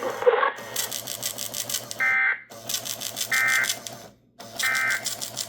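EAS alert receiver's built-in printer printing out the record of a received EAS test: three runs of rapid, even rasping, each ending with a brief high whine, with short pauses between them.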